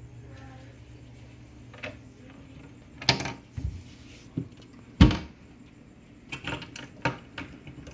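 A wooden cabinet door on a converted china-hutch enclosure being handled and shut: a few sharp wooden knocks, the loudest thump about five seconds in, followed by several lighter clicks.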